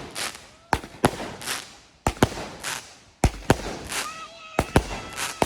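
Firecrackers and fireworks going off one after another: about a dozen sharp bangs at uneven spacing, roughly two a second, each trailing off in a fading echo.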